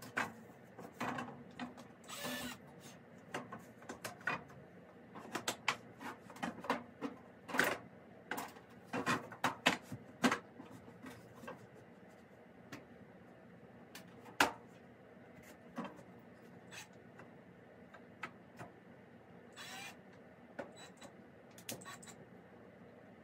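Handheld power drill boring holes in a wooden shelf board in short bursts, among a string of clicks and knocks from the board and drill being handled. The sounds come thickest in the first half and thin out later.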